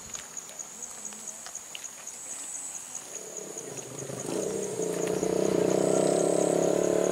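Crickets chirping in a steady, even, high pulse. From about four seconds in, an engine's steady hum rises and becomes the loudest sound, then runs on evenly.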